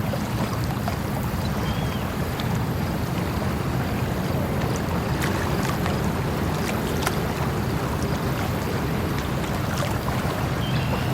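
Flowing water rushing steadily, with a few scattered small clicks and faint brief chirps over it.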